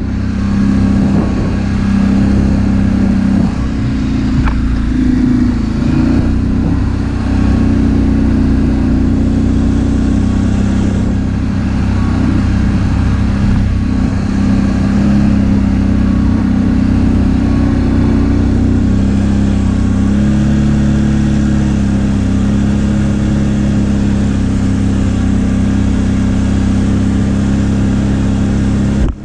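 Can-Am ATV engine running loudly at a fairly steady pitch, shifting briefly about twenty seconds in.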